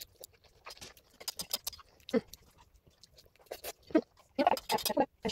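Pet black-headed caique parrot calling in short squawks and chatter, coming more often and louder about four and a half seconds in.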